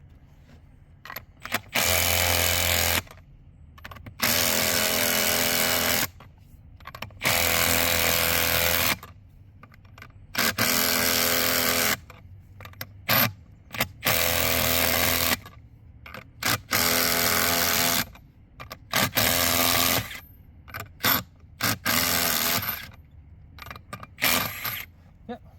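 Power drill running a socket on the bolt nuts of a Romac pipe coupling, in about a dozen bursts of one to two seconds with short pauses, the longer runs coming first and shorter blips later as the nuts tighten down.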